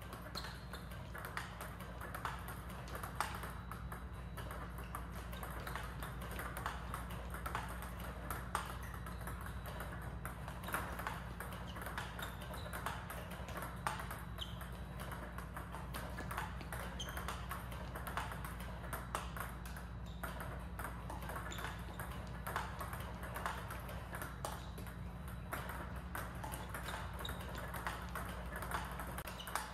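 Table tennis balls in play against a ball-throwing robot: a quick, steady run of sharp clicks as the celluloid-type balls are fed, bounce on the table and are struck by the rubber paddle, over a steady low hum.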